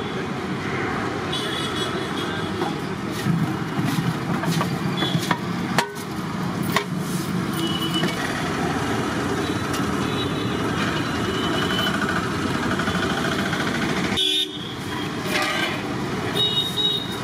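Busy street noise of passing traffic, with vehicle horns honking briefly several times.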